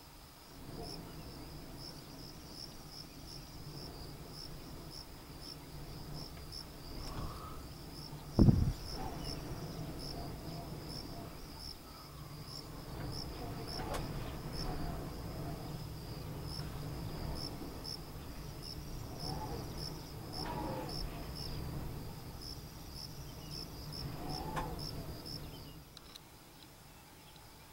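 Insects chirping in a steady, evenly pulsed high rhythm over a low rumble. There is one loud thump about eight seconds in and a few faint short calls. The rumble stops near the end.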